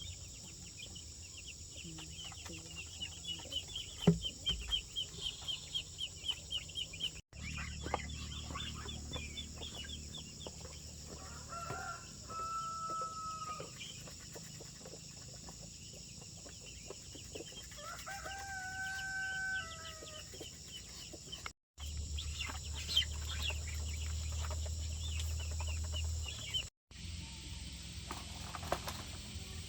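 A rooster crows twice, a long held call each time, about twelve and eighteen seconds in, amid chicken clucking and rapid repeated high calls. A steady high buzz of insects runs underneath.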